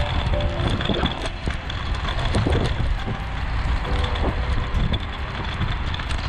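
Steady low rumble of road and wind noise while riding a kick scooter among traffic. Brief faint steady tones come in about half a second in and again around four seconds in.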